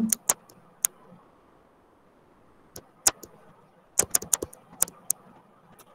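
Sharp clicks and taps of a stylus on a touchscreen during handwriting, in scattered bunches: a few within the first second, one around three seconds in, and a quick run of taps about four to five seconds in.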